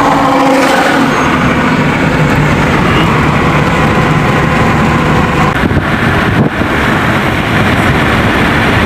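Fiat Uno driving at road speed, heard from inside the cabin: steady engine and road noise.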